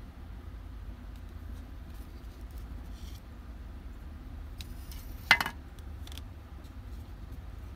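Faint ticks of small objects being handled, and one sharp click about five seconds in, over a steady low hum.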